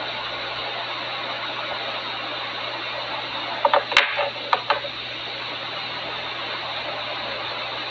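Steady hiss with a low hum underneath, and a handful of small, sharp clicks about four seconds in as the gel polish bottle and brush are handled.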